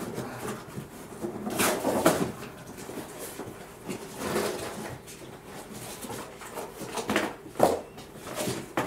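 Cardboard box and packing being handled and pulled apart: rustling and scraping, with sharp knocks and tearing sounds about two seconds in and again around seven seconds.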